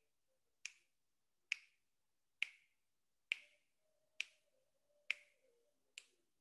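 Seven sharp clicks at an even pace, a little under a second apart, keeping time through a held breath.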